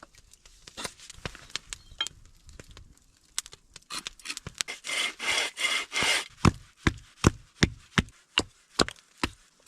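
Hand tool rasping back and forth in repeated strokes: scattered strokes at first, a dense stretch of scraping in the middle, then a steady run of about two to three strokes a second.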